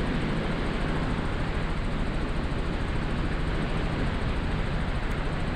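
Robinson R44 Raven II helicopter in cruise flight, heard inside the cockpit: a steady drone of engine and main rotor with a low hum under it.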